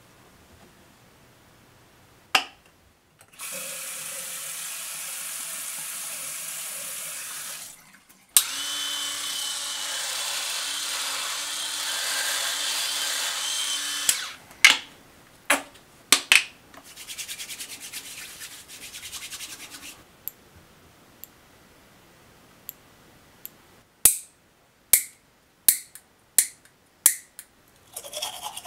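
Bathroom grooming sounds: water runs from a tap in two long stretches of several seconds, the second with a low steady hum under it. Then comes a string of sharp clicks and knocks as toiletry bottles and caps are handled.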